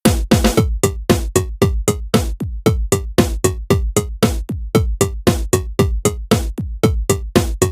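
Electronic drum-machine beat made on a smartphone beat-making app: a fast, even pattern of deep kicks that drop in pitch, crisp hits and a short repeated synth figure. The full beat comes in after a brief gap.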